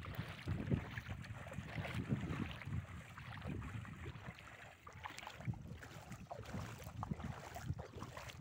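Wind buffeting the microphone in uneven gusts, with splashing footsteps of people wading through ankle-deep seawater.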